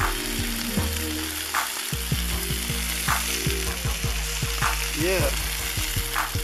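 Chicken drumsticks, burger patties and sliced squash sizzling steadily on a Blackstone flat-top gas griddle.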